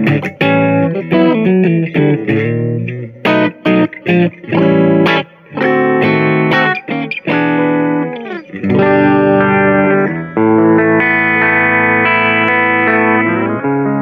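Grote ST HSS electric guitar played solo: quick single-note runs with short stops through the first half, then long held chords ringing out from a little past halfway, changing twice.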